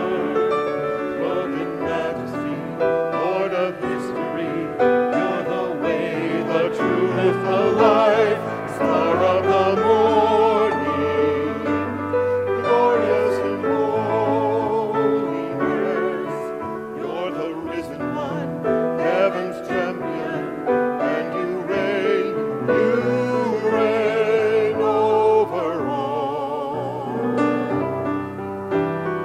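Small mixed group of singers, men and women, singing a worship song in harmony with vibrato over piano accompaniment; the voices drop out near the end, leaving the piano.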